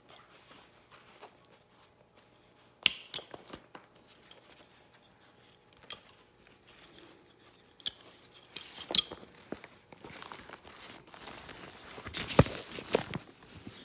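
Packaging and items being handled by hand: rustling and crinkling with a few sharp clicks, growing into louder rustling bursts in the last third.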